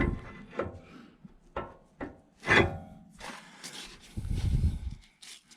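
Steel pry bar levering against the front suspension's outer tie rod, checking it for play: several sharp metal knocks, the loudest about two and a half seconds in, then a scraping rub a little after four seconds.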